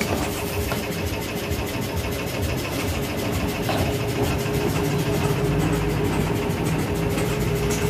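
Workshop air compressor running steadily, a mechanical hum with an even, fast pulsing beat, while it supplies air to inflate a motorcycle tyre.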